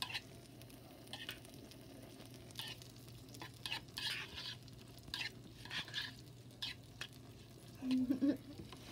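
Spoon stirring and scraping through roasted zucchini and peppers in a bowl, in irregular strokes, over a faint steady sizzle of quesadillas frying on a griddle.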